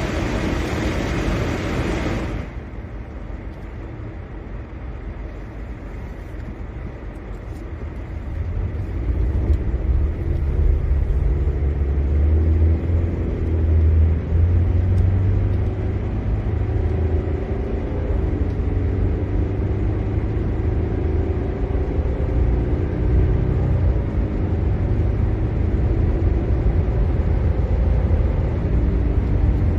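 A short burst of loud hiss cuts off about two seconds in. After it comes a motor vehicle running with a low rumble that grows louder after several seconds, its engine pitch shifting up and down.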